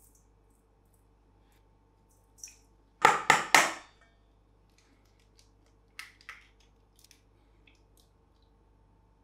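An egg tapped three times in quick succession against the rim of a stainless-steel bowl to crack it, each tap sharp and ringing slightly. About three seconds later come two much softer clicks.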